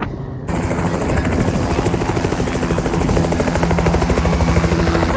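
Helicopter running close by: a fast, even rotor beat over a steady engine drone. It cuts in abruptly about half a second in.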